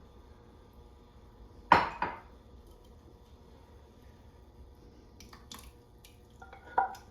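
Kitchenware knocking against a cooking pot while marinara sauce is added: one sharp clank about two seconds in with a lighter knock just after, then a few soft clinks near the end.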